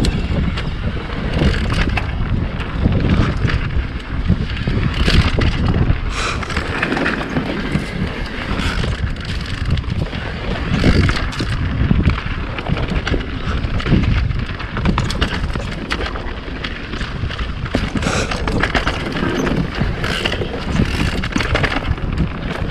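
Mountain bike riding a dirt singletrack: knobby tyres rolling over dirt and roots, with a steady run of knocks and rattles from the bike as it goes over bumps, and wind rushing over the microphone.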